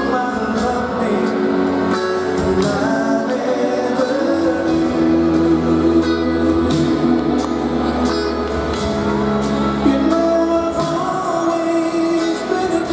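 Live rock band performing with a lead vocal over bass guitar, electric and acoustic guitars and drums, heard through the stage PA from out in the audience.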